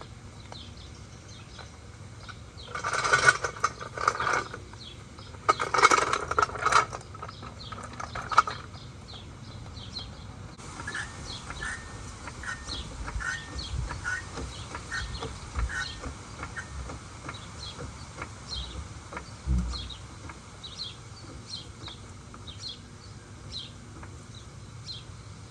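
Small birds chirping over and over, broken by two loud noisy bursts of a second or so each, about three and six seconds in.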